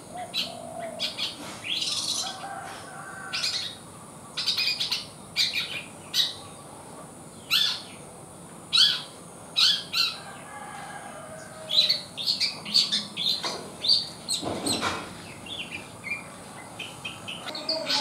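Young long-tailed shrike (cendet), about three months old, giving many short high chirps in irregular runs, with a few softer lower warbled notes and one louder falling note near the end: the early practice song of a young bird just beginning to learn its song.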